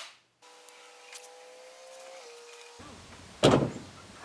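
A power drill cuts off at the very start, followed by a faint steady hum. About three and a half seconds in there is a single loud thump.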